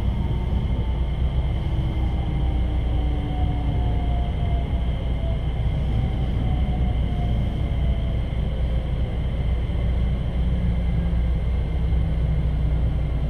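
Train running: a steady low rumble with faint whining tones that slowly drop in pitch.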